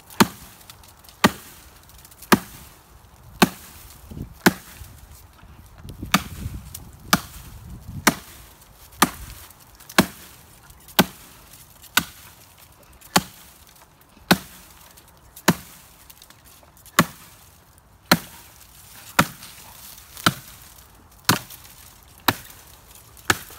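Fiskars X15 short chopping axe biting into a fallen tree trunk: a steady run of sharp chops, about one a second, over twenty in all.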